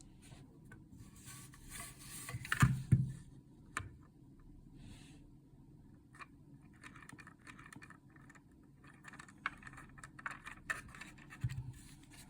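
A small M2 screw being tightened into a 3D-printed plastic receiver part: faint scratching and small clicks, with a couple of louder knocks about two and a half to three seconds in.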